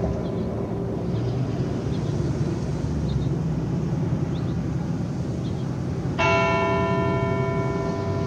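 A large bell tolling: the tones of an earlier stroke are still fading at the start, then a single new stroke lands about six seconds in and rings on with many overtones. A steady low rumble of traffic runs underneath.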